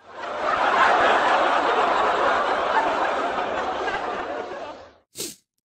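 Crowd laughter, swelling in, holding for about five seconds, then fading out, with a short extra burst just after.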